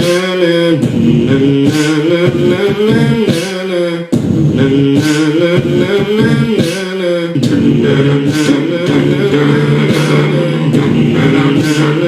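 Live-looped a cappella music on a Boss RC-505 loop station: a beatboxed beat repeating under layered sung or hummed vocal parts and a steady low vocal note. It drops out briefly about four seconds in, and the vocal layers change after about seven seconds.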